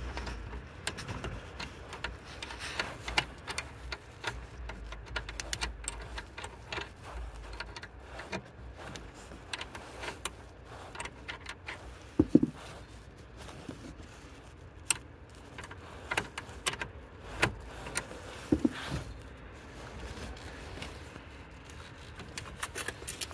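Irregular clicks and light metallic clinks of a 10 mm wrench working the 12-volt battery's terminal clamp as the battery is disconnected.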